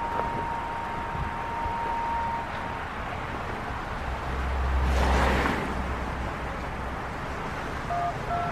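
A steady electronic tone held for about three seconds, then a car passing about five seconds in, with short beeps at changing pitches starting near the end.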